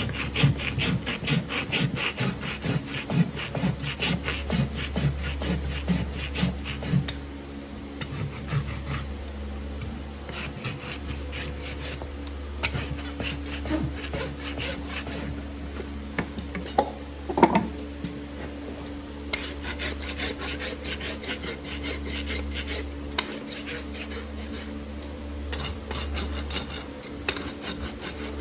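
Farrier's rasp filing the bottom of a horse's hoof to level it for a shoe. It comes in runs of quick rasping strokes with short pauses between them.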